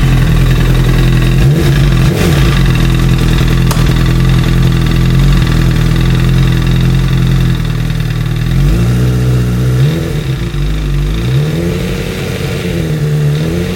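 2008 Honda CBR1000RR inline-four engine running just after starting, held steady and then given several short throttle blips near the end. It has a crank knock that the owner takes for the recalled crankshaft fault, the knock easing as load goes on the rear tyre.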